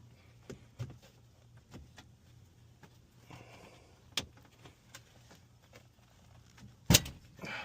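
Scattered light clicks and knocks over a steady low hum, with one sharp, loud knock about seven seconds in.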